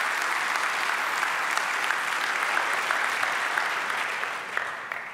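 Audience applauding in a lecture hall at the end of a keynote talk, a steady patter of many hands that dies away near the end.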